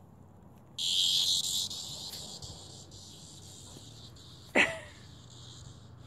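A cicada suddenly bursts into a loud, high buzz about a second in, the alarm buzz of a disturbed cicada; the buzz then weakens but keeps going. Partway through comes a brief, sharp cry that drops steeply in pitch.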